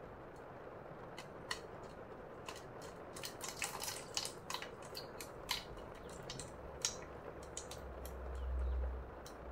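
Water dribbling from a tilted glass jar into a plastic cup, a thin stream and irregular drips making many small splashes. A low rumble swells near the end.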